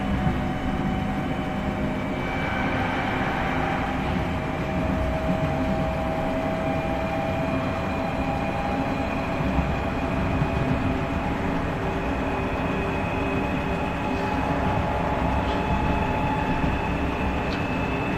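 Class 465/9 Networker electric train heard on board: its GEC Alsthom GTO-VVVF traction inverter and motors whine over the steady rumble of the wheels on the track. The whine is several steady tones that slowly rise in pitch, as they do while the train gathers speed.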